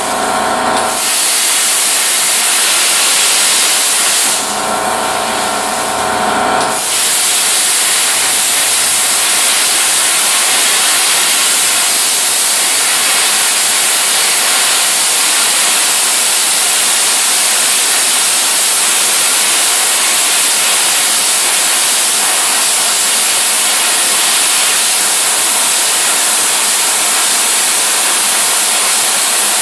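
Loud steady hiss. A low hum and a few steady tones run under it in the first second and again from about four to seven seconds in.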